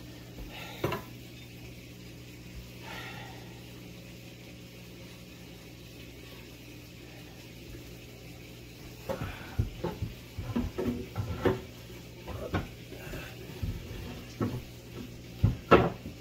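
Wooden cabinet boards knocking and clattering against the cabinet frame as they are handled and fitted into place. There is one knock about a second in, then an uneven run of knocks in the second half, the loudest near the end, over a steady low hum.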